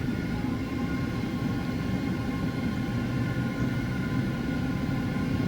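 Cabin noise inside a Boeing 767-400ER: its GE CF6 turbofan engines running steadily, a low rumble with several thin, steady whines above it.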